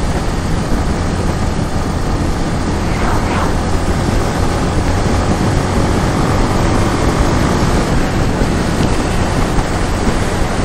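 Honda CB Twister's single-cylinder engine running steadily at highway cruising speed, mixed with heavy wind rush on the rider's microphone.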